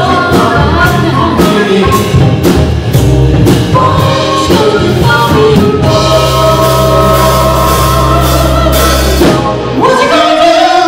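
Live band with a horn section, female lead singer and drum kit playing the close of a soul-funk cover. A steady drum beat runs under horns and singing, then the band holds one long chord from about six seconds in, and it swells upward into a final chord near the end.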